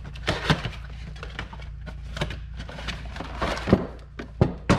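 Cardboard box being torn open and an aerosol can pulled out of it: rustling and tearing cardboard with a series of sharp knocks and thumps, the loudest near the end, over a steady low hum.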